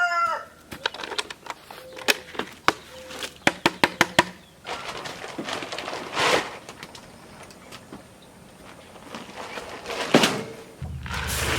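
A quick run of sharp clicks and knocks, then a few brief scraping swishes, with a steady low hum starting near the end.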